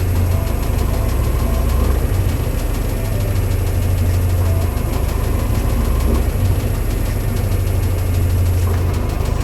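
Washing machine running: a steady low motor hum that swells and eases every second or two, with faint higher whining tones coming and going.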